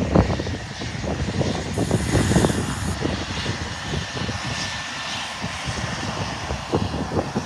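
Twin-turboprop aircraft's engines running as it rolls along the runway, with a faint steady whine from about two seconds in, over gusty wind rumble on the microphone.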